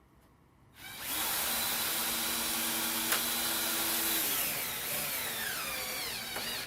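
Power drill driving a 3-inch wood screw into a 2x4. The motor whines at a steady speed, then its pitch falls over the last couple of seconds as the screw bites in, and it stops suddenly.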